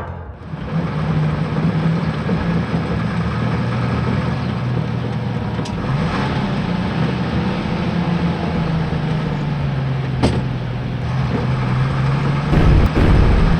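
Vehicle engine sound effect running steadily with a low hum, broken by a short sharp sound about six seconds in and again about ten seconds in, then a heavier low rumble near the end.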